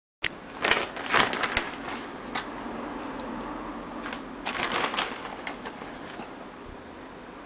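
Irregular crisp clicks and crackles of hand handling, in two clusters: one right at the start and another about four and a half seconds in.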